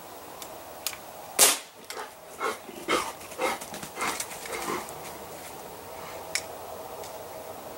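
Crosman C11 CO2 BB pistol firing: one loud shot about a second and a half in, then a quick string of about six quieter pops roughly two a second, with a few faint trigger clicks around them. The gun is misfeeding BBs, so some pulls are dry fires.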